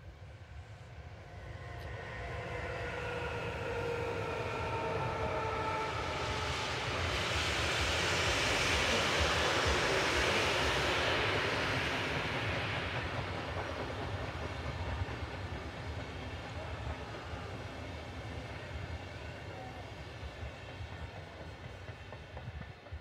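Special passenger train hauled by a Class 189 electric locomotive passing at speed: a whine of several tones sliding down in pitch as it approaches, building to a loud rush of wheels on rail as it passes closest, then a long string of coaches rolling by and slowly fading.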